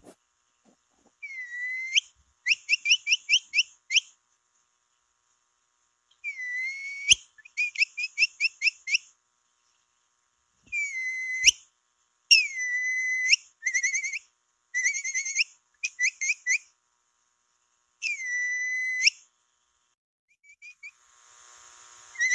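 Capybara whistle call for attracting capybaras, repeated in bouts: each is a whistle that glides up and then holds, mostly followed by a quick run of short chirps at about six a second. A few sharp clicks fall between bouts.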